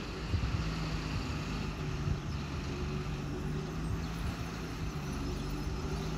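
Diesel engine of a stone-laden Tata Signa dump truck running in a steady low drone as the truck crawls slowly through mud.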